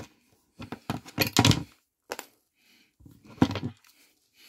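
Metal crimping pliers picked up and handled on a wooden tabletop: a string of sharp clicks and clacks, loudest about a second and a half in and again about three and a half seconds in.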